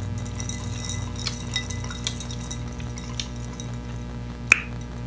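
Faint light clicks and scraping of a plastic straw in a glass as a drink is sipped, with a single sharp click about four and a half seconds in, over a steady electrical mains hum.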